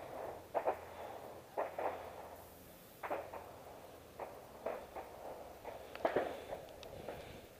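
A hiker's footsteps climbing wooden railway-tie steps strewn with gravel: a train of irregular short scuffs and crunches, roughly one or two a second.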